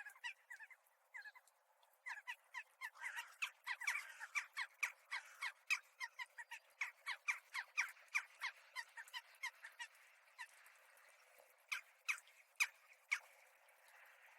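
A flock of crows calling in quick, short repeated calls, several a second and overlapping, with a short lull about a second in. The calls thin out after about ten seconds, leaving a few louder single calls near the end.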